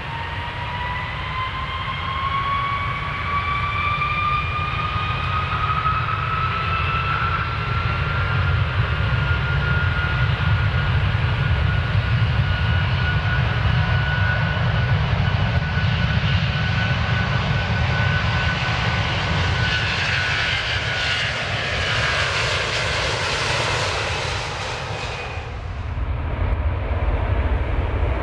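Airplane taking off: the engines' whine rises in pitch over the first several seconds and then holds steady over a deep, continuous rumble. A loud rushing hiss builds in the second half and cuts off suddenly a few seconds before the end, leaving the rumble.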